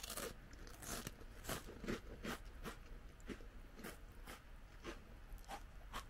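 Tohato Harvest sesame biscuit being chewed: a run of crisp, uneven crunches, about two a second.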